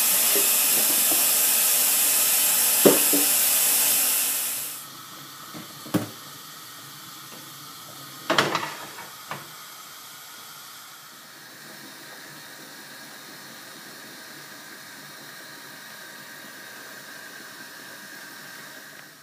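Kitchen tap running into a stainless steel saucepan, shut off about five seconds in. A few knocks of the pan follow, the loudest about eight seconds in, then a quiet steady hiss.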